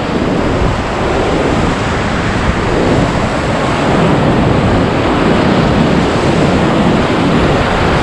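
Whitewater rapids on the Ganges rushing and crashing around an inflatable raft, loud and continuous.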